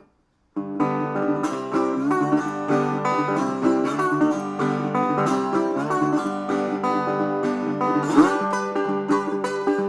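A guitar plays a picked instrumental song intro, starting about half a second in, with one note sliding upward near the end.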